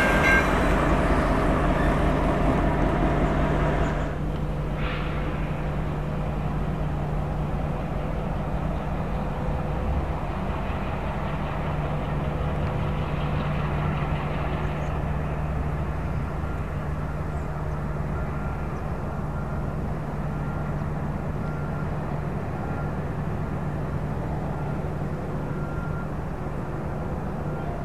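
Norfolk Southern GP38-3 diesel-electric locomotive running with a steady low engine hum. It is louder in the first four seconds, then drops suddenly to a quieter steady drone.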